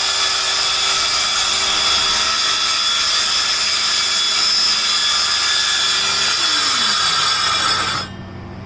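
Cordless power saw running and cutting through wood, a steady loud whine and rasp; near the end a tone drops in pitch and the sound cuts off abruptly.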